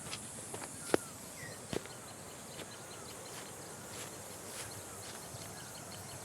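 Quiet outdoor ambience: a faint, steady high drone of insects with a few short bird chirps. Two sharp knocks stand out, one about a second in and a weaker one just under two seconds in.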